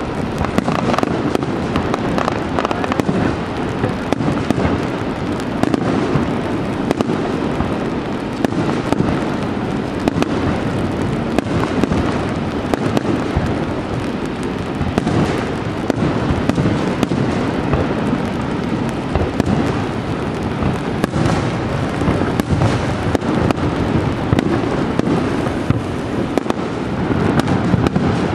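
Fireworks display: a continuous barrage of bursts and crackles, densely packed with no break.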